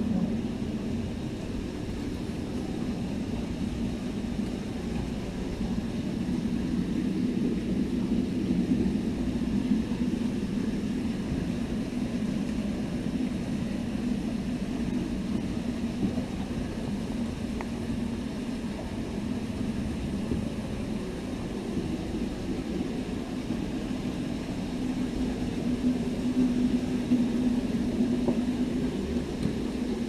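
Cave stream flowing through a low, water-filled crawlway: a constant deep rushing of water that goes on without a break.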